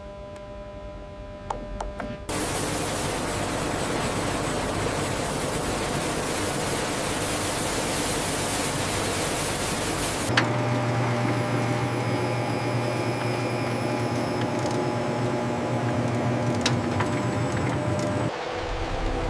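Recycling-plant machinery noise: a loud, even rushing noise that starts abruptly, then changes abruptly to a machine noise with a low steady hum and a few faint steady tones, changing once more near the end.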